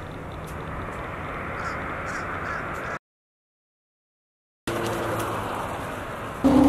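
A few harsh bird calls over steady outdoor background noise. The sound cuts out completely for about a second and a half midway, then the noise resumes, growing louder near the end.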